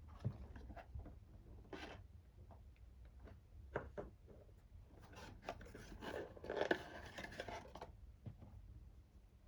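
Packaging being handled and opened: scattered clicks and short scrapes, then a longer stretch of crinkling and rustling from about five to eight seconds in.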